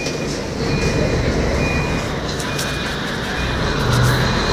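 Mercedes-Benz O500MA articulated bus's diesel engine running, heard from inside the bus, with a short high electronic beep repeating about once a second. A rising whine comes in about three seconds in, and the engine swells briefly near the end.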